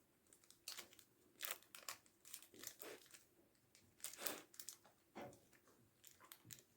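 Faint eating sounds: a segment of chocolate orange bar being chewed, with short, scattered rustles and crinkles of its wrapper.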